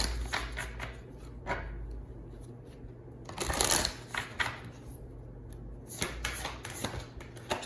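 Tarot cards being shuffled and handled, a run of papery rustles and snaps, loudest about three and a half seconds in.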